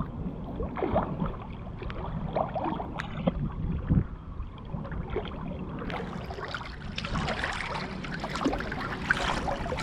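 Pool water splashing and sloshing as a person moves through it, with scattered small splashes that grow busier and louder about six seconds in.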